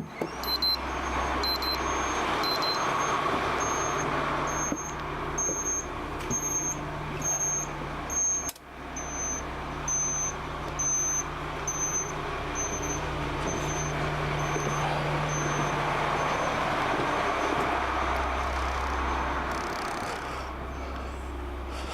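Motor home's right turn signal on: a short high indicator beep repeating about every 0.8 seconds over a steady low vehicle rumble, with one sharp click about eight and a half seconds in.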